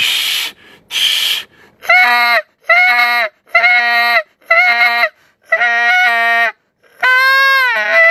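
Two breathy rushes of air, then a Canada goose call blown in a run of five tubey, buzzy notes, each about half a second to a second long. Near the end comes a longer note that slides down in pitch and then breaks over into a higher, steady tone.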